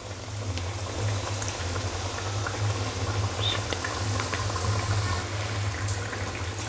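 Rava appam (semolina dough rounds) deep-frying in hot oil in a pan: a steady bubbling sizzle full of small crackles, over a low steady hum.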